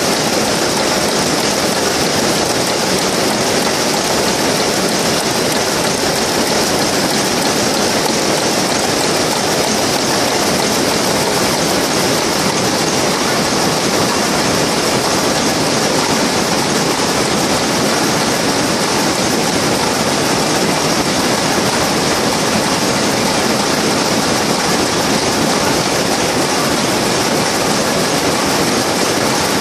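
Shuttleless terry towel looms running in a weaving shed: a loud, dense, steady clatter with no break.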